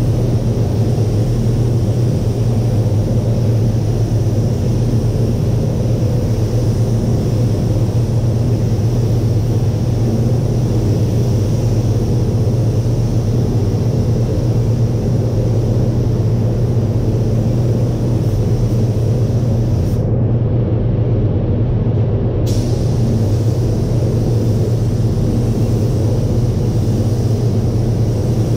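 Steady low rumble of a paint spray booth's air-handling fans, with the hiss of a compressed-air spray gun laying paint.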